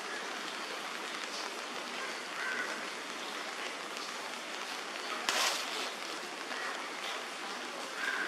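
Steady outdoor background hiss of wet weather, like light rain or running water. A single short, sharp noise comes about five seconds in, and faint short calls sound a couple of times.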